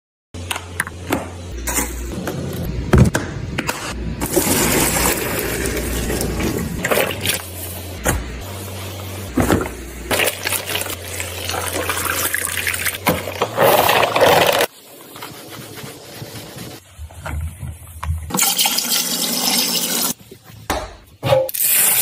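Water running and sloshing around a spin mop head in its bucket, with scattered knocks from handling. The sound drops away about fifteen seconds in and swells again a few seconds later.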